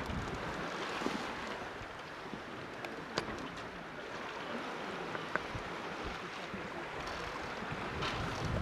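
Sailboat under sail, running downwind: steady rush of water along the hull and waves, with wind buffeting the microphone, stronger near the end. A few short clicks are heard over it.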